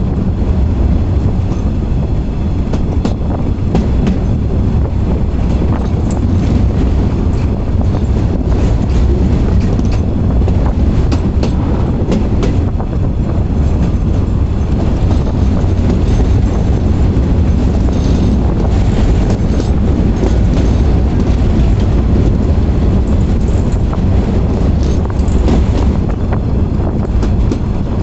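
A freight train of tank wagons running along the track, heard from on board: a steady loud rumble of wheels on rail, with scattered clicks.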